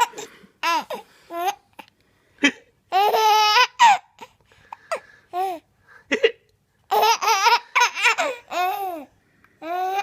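A baby laughing in runs of high-pitched giggles, each run set off by a man's short, sharp hiccup just before it, about two and a half and six seconds in.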